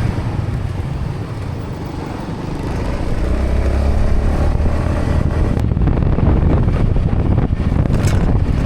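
Motor scooter running while being ridden along a road, with steady road noise. The sound eases off a little between about one and two seconds in, then picks up again.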